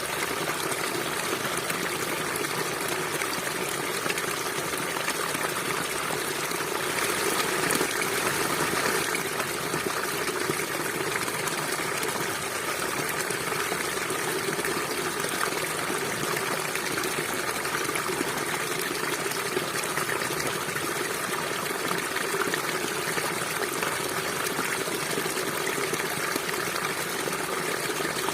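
River water flowing and gushing steadily, a full rushing sound that swells slightly about seven seconds in.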